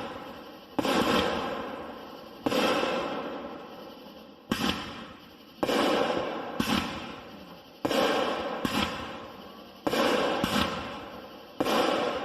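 A 2-inch fireworks cake, SFX American Creed, firing shot after shot, about one every one to two seconds. Each shot is a sharp report that dies away over a second or more, with a few smaller pops in between.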